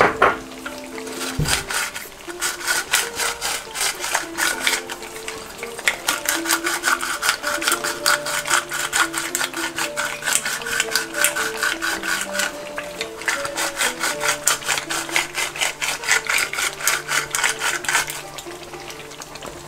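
A hand pepper mill grinding peppercorns: a steady, rapid rasping click, about five a second, that stops near the end. Medieval-style music with a low drone plays underneath.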